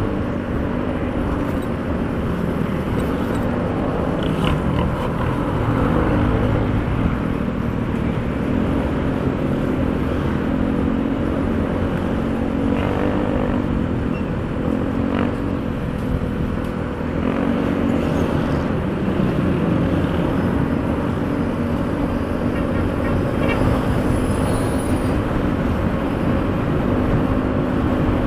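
Honda BeAT 110 FI scooter's single-cylinder four-stroke engine running while riding on the road, its pitch rising and falling with the throttle, over steady wind and road noise.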